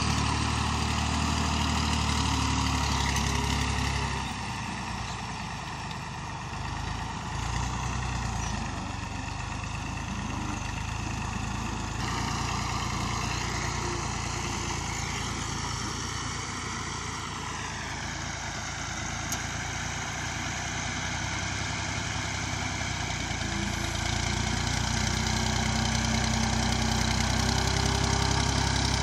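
Massey Ferguson 240 tractor's three-cylinder Perkins diesel engine running as the tractor drags a rear levelling blade through soil. The engine note drops a little over halfway through, and the sound is quieter through the middle stretch and louder again near the end.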